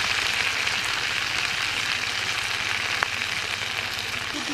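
Food frying in hot oil in a pan: a steady sizzle, with one sharp click about three seconds in.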